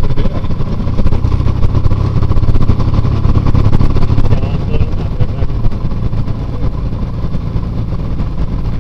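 Light single-engine aircraft's piston engine and propeller running at low power while taxiing, heard from inside the cockpit as a steady low drone that eases a little after about four seconds.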